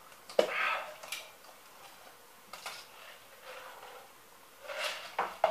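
Paper fountain-drink cup being handled, its plastic lid pulled off, then soda and ice gulped from the rim and sipped through a straw. Several sharp clicks and short rustling, slurping sounds.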